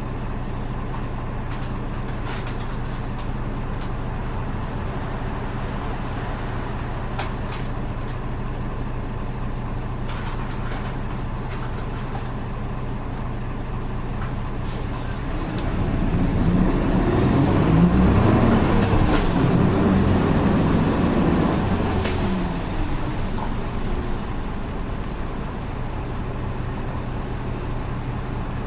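Diesel engine of a Nissan Diesel Space Runner RA city bus (PKG-RA274MAN), heard from inside the bus, running steadily. About fifteen seconds in it pulls harder for several seconds, its pitch rising and then falling, before dropping back to the steady hum. This bus's engine note is unlike that of other buses of the same type.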